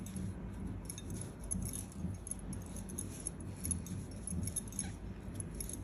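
Faint light clinks and rustles of hands working a crochet hook and yarn through a stitch.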